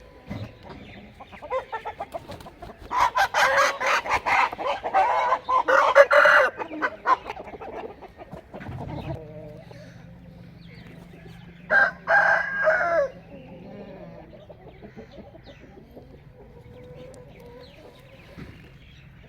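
Aseel roosters crowing: a long, rough crow about three seconds in and a shorter one about twelve seconds in.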